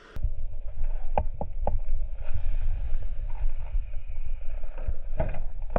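A low, fluctuating rumble with several sharp knocks: three about a second in and two more near the end.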